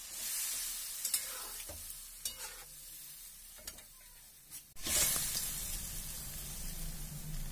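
Metal spatula stirring and scraping a curry gravy in a kadai, with a few short scrapes against the pan over a hissing sizzle. The sizzle gets louder from about five seconds in.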